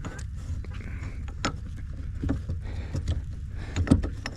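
Tow hitch and chain hardware being handled, giving a string of separate metal knocks and clicks, the loudest about four seconds in, over a low steady rumble.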